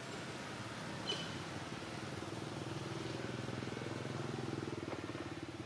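A small engine, like a motorbike's, runs steadily with a fine rapid pulse, growing louder through the second half. A short high chirp sounds about a second in.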